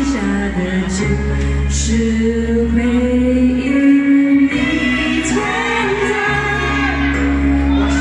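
A woman singing a Mandarin pop ballad live into a handheld microphone over backing music, holding long notes.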